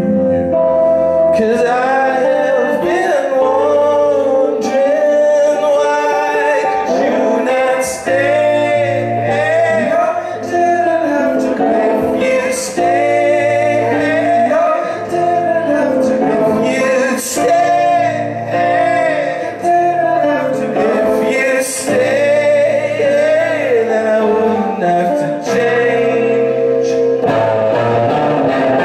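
Live band playing a song: a male lead vocal sung over acoustic and electric guitars, bass and drums.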